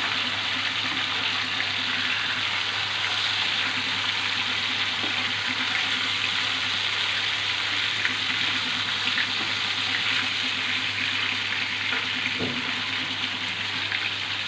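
Pieces of rohu fish shallow-frying in hot oil in a pan: a steady sizzle with a few light clicks and scrapes of a spatula turning the pieces.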